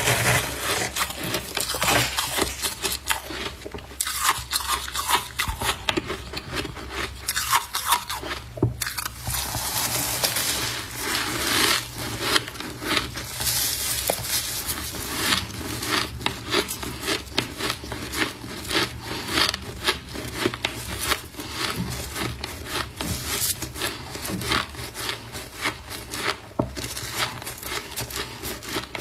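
Close-up crunching of frost being eaten, a steady stream of sharp crisp crackles and crunches.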